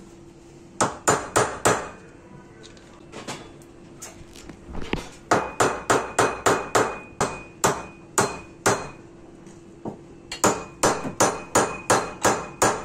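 A hammer striking the end of a metal rod, driving it down into a hollow plastic chair leg. The sharp strikes come in quick runs of about three or four a second, several runs with short pauses between them.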